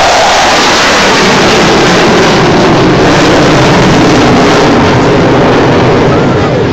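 Loud, steady jet engine noise from a fighter jet flying an aerobatic manoeuvre.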